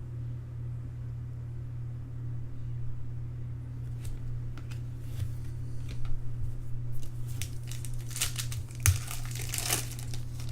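Foil wrapper of a trading-card pack crinkling and tearing as it is opened, in crackly flurries that grow busier and louder in the second half, over a steady low hum.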